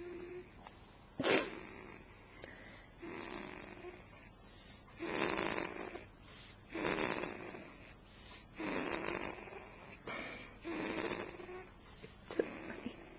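A sleeper snoring, one noisy snoring breath about every two seconds, with a short sharp snort about a second in.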